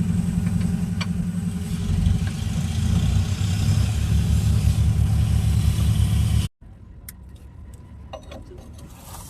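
Eicher truck's diesel engine idling with a steady rapid chug, which cuts off suddenly about six and a half seconds in. After that it is much quieter, with a few light metallic clicks.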